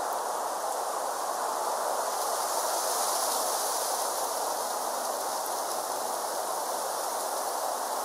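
Steady outdoor background noise: an even, continuous rushing hiss with a fainter high steady hiss above it, and no distinct events.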